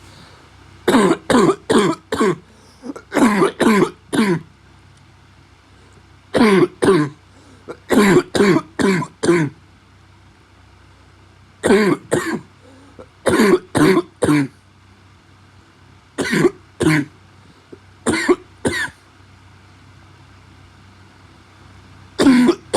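A man's barking cough: short, loud coughs in quick runs of two to five, about nine runs with pauses of one to three seconds between them, over a faint steady hum.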